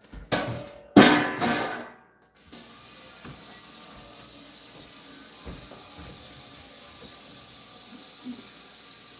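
Kitchen tap running in a steady, even hiss, switched on suddenly about two and a half seconds in, after a loud clatter about a second in.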